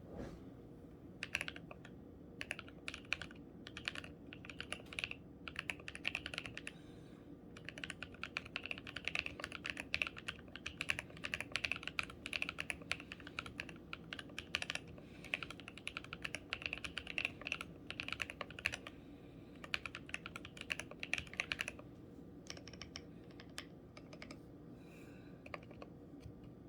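Typing on a Sneakbox Ava mechanical keyboard with Durock Lupine linear switches, a POM plate and Drop DCX ABS keycaps: a fast, steady run of keystrokes with a short pause about seven seconds in. It thins to a few scattered key presses after about 22 seconds.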